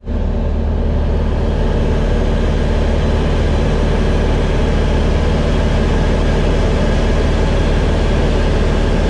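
Steady drone of a Grumman single-engine light aircraft's piston engine and propeller in flight, heard inside the cabin, a deep hum under a constant rush of air.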